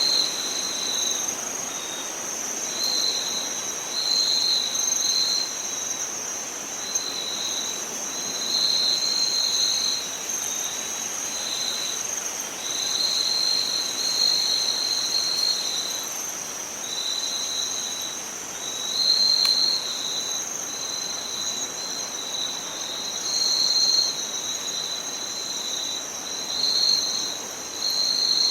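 Insects trilling: one high trill holds steady throughout while a second, slightly lower trill comes and goes in short runs, over a faint even hiss.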